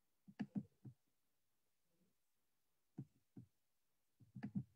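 Near silence over a video-call microphone, broken by a few soft, low knocks: a cluster of three within the first second, two single knocks around three seconds in, and a quick run of several near the end.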